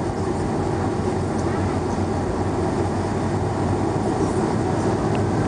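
Steady low rumble and hum inside an airliner's cabin as the jet taxis on the ground with its engines running.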